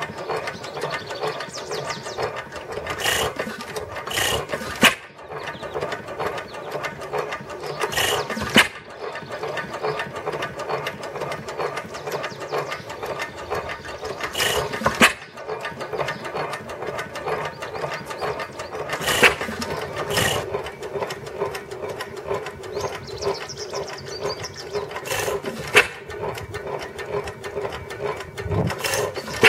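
5-1/2 hp Manitoba stationary engine running hit-and-miss. The valve gear and governor clatter steadily while it coasts, and a sharp firing stroke comes every few seconds, often two close together.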